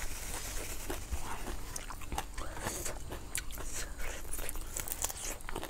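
Close-up chewing and biting of grilled chicken, with many small clicks and crunches from mouth and teeth.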